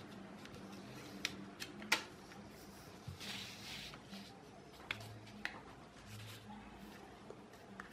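A sheet of A4 paper being folded and creased by hand: a few sharp paper ticks and crackles, and a brief rustle about three seconds in.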